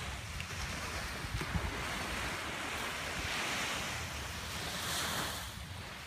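Small ocean waves breaking and washing up on a sandy beach, a steady surf hiss that swells twice, with gusts of wind rumbling on the microphone.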